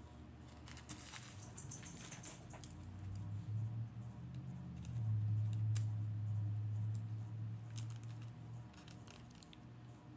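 Small plastic bags of diamond-painting drills being handled and sorted, with light clicks and rustles. A steady low hum, loudest from about four to eight seconds in, sits under the clicks.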